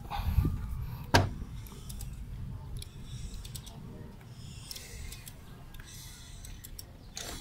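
Tools working on a Toyota 4K engine as its crankshaft pulley is turned by hand to bring the timing mark to top dead center: a few sharp knocks, the loudest about a second in and another near the end, over a low rumble.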